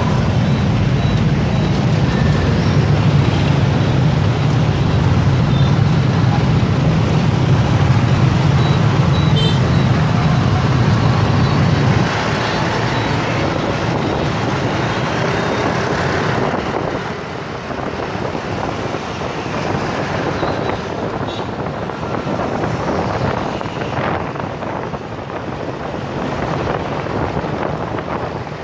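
City street traffic heard from within a flow of motor scooters and cars: engines running and tyres on the road. A steady low engine drone is loudest for the first twelve seconds, then drops away, leaving a lighter traffic hum.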